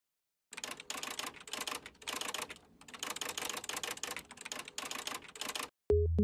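Rapid typing clicks in several bursts, a keyboard-typing sound effect, with a short pause about two and a half seconds in. Electronic music with a synth and a steady drum-machine beat starts suddenly just before the end.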